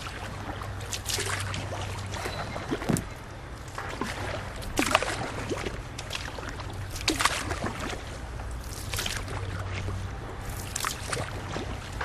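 Kayak paddle strokes: the blade dips into river water about every two seconds, each dip a short splash with dripping water, over a steady low hum.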